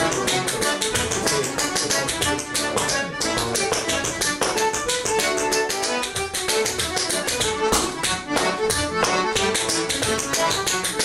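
Button accordion playing a traditional Irish dance tune, with the rapid, steady tapping of a sean nós dancer's shoes on a stone-flagged floor in time with the music.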